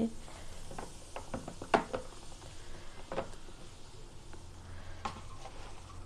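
A wet cloth rubbing and scrubbing a plastic washing-machine detergent drawer over a basin of soapy water, with scattered small plastic knocks and clicks, the sharpest about two seconds in.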